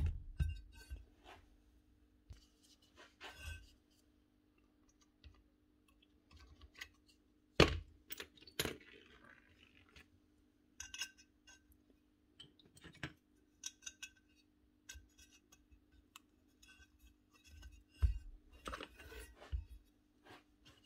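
Metal hammer-drill parts and an aluminium gear housing handled on a workbench: scattered light clinks and clicks, with a few louder knocks at the start, about eight seconds in and about eighteen seconds in.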